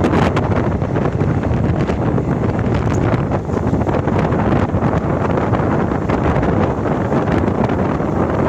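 Steady running noise of a moving train on the track, with wind buffeting the microphone.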